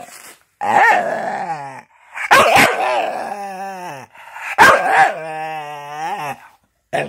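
Staffordshire bull terrier 'talking': three drawn-out, wavering yowls, each a second or two long and mostly sliding down in pitch, followed by a couple of short yips near the end.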